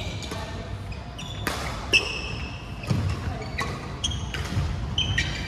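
Badminton rally: sharp racket strikes on the shuttlecock, the loudest about two seconds in, mixed with short high squeaks of sports shoes on the wooden court floor, echoing in a large hall.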